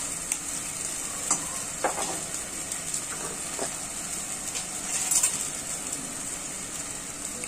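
Steady sizzling hiss from a metal pot of fried onions and freshly added water heating on a gas burner, with a few faint clinks scattered through it.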